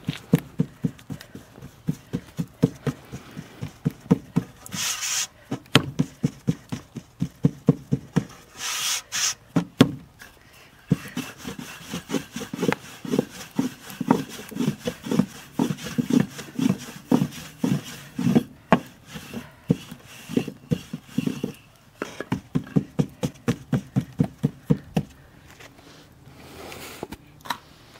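Wooden rolling pin rolling out flatbread dough on a floured board, knocking back and forth about three times a second, with a few short pauses. Two brief hissing noises cut in early on.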